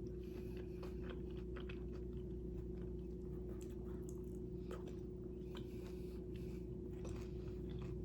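A person chewing a mouthful of turkey and vegetable wrap, with faint scattered wet mouth clicks. A steady low hum runs underneath.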